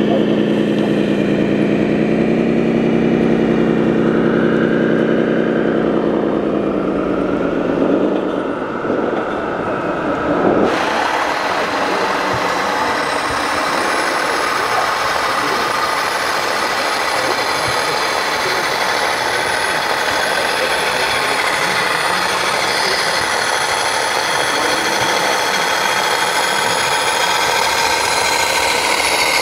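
RC model truck's sound module playing a steady diesel engine note that winds down and fades out about eight seconds in. After a cut, a steady noisy background with a thin, high, wavering whine takes over.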